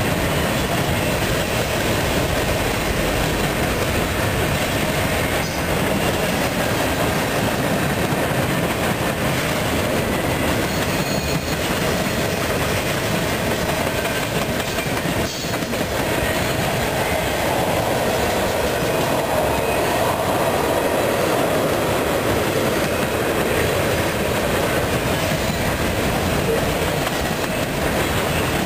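A mixed freight train of boxcars, covered hoppers and tank cars rolling steadily past, a continuous noise of steel wheels running on the rails.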